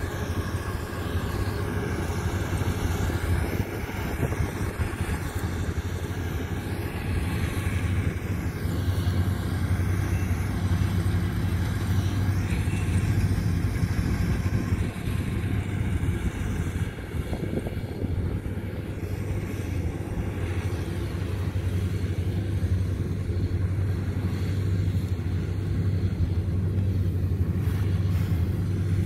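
Kubota DC-105X combine harvester running steadily while cutting and threshing rice: an even engine and machinery drone with a strong low tone that holds steady.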